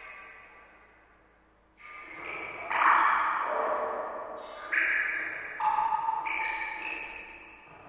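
Water drops plinking into water, each a short pitched plop that starts suddenly and rings away, at uneven intervals and different pitches. About six drops, after a near-quiet first second or so, the loudest about three seconds in.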